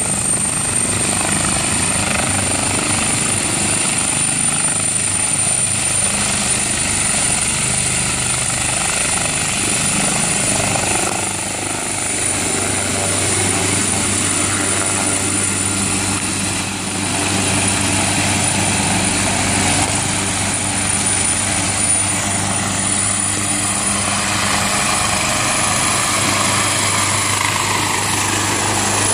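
AgustaWestland AW139 twin-turbine helicopter lifting off and climbing away, its rotor and a steady high turbine whine running loud throughout, with a sweep falling in pitch near the end as it flies past.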